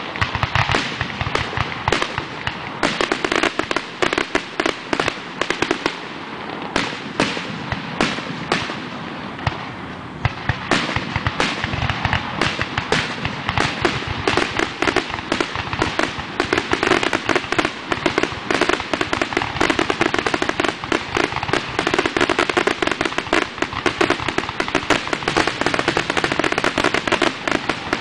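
Aerial fireworks shells bursting in rapid, overlapping succession, booms and crackles almost without a break, the finale barrage of the display. The bangs come thicker from about halfway through.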